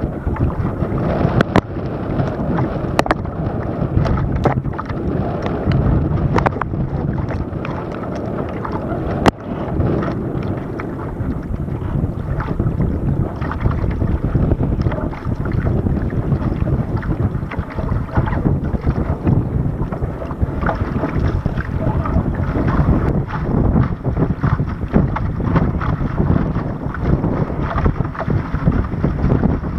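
RS Aero sailing dinghy moving through choppy water, its hull rushing and slapping through the waves, with wind buffeting a deck-mounted action camera's microphone. A few sharp knocks come in the first ten seconds.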